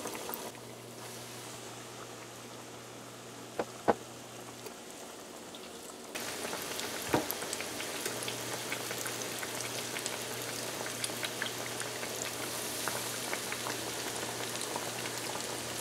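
Fish cakes frying in hot oil in a stainless steel pan: a steady sizzle with small crackles, which gets louder about six seconds in. A few sharp clicks sound near four and seven seconds in.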